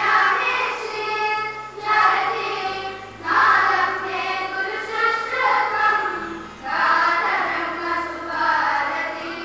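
Schoolchildren singing a prayer together in long held phrases, over steady low accompanying notes that change pitch twice.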